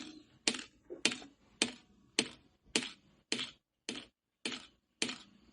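Small speaker driven by a BC547 transistor pulse circuit, giving a heartbeat sound effect of sharp clicks about twice a second. Each click is followed by a fainter one.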